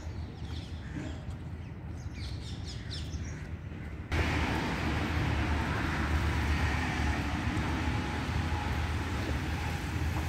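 Small birds chirping over quiet park ambience. About four seconds in, this gives way abruptly to a steady, louder rush of road traffic noise.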